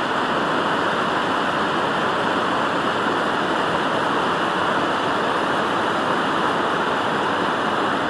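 A Yellowstone fumarole, a volcanic gas and steam vent, hissing in a steady, unbroken rush.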